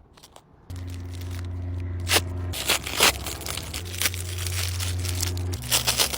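Paper being crinkled and torn open, with sharp crackling tears about two seconds in, around three seconds, and near the end, as in opening a paper blind bag. Under it runs a soft bed of sustained low notes.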